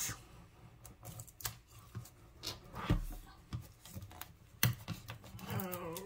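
Scattered light clicks and taps of a folding knife and fingertips on a plastic-wrapped cardboard box as the shrink wrap is cut open.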